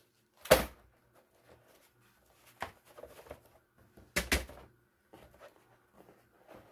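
Handling knocks on a tabletop: one sharp knock, a few light taps, then a louder double knock about four seconds in as a diamond painting is laid down on the table, followed by faint rustling.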